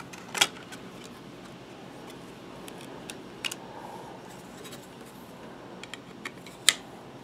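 Quiet handling of a trading card and a plastic card holder, with several short sharp clicks, the loudest near the end: a one-of-one metal printing plate being put into a protective holder.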